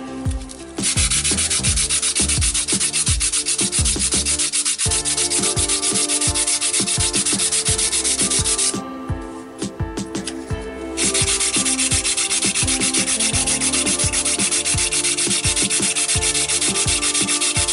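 Sanding block rubbed in quick back-and-forth strokes along the edge of a Depron foam tail piece, a fast dry rasping that stops for about two seconds midway and then resumes.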